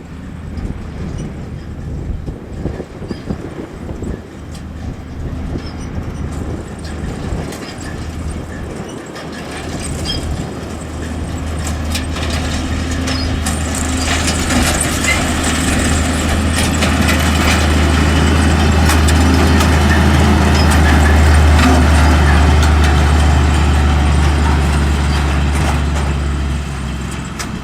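Large diesel farm machinery running, its steady low engine drone growing louder from about ten seconds in and loudest past the middle, then dropping off just before the end, with machinery clatter and knocks over it.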